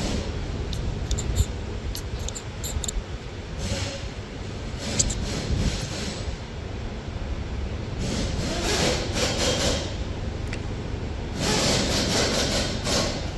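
Hands working a timing chain tensioner: a few light metallic clicks early, then several stretches of scraping and rubbing, over a steady low rumble.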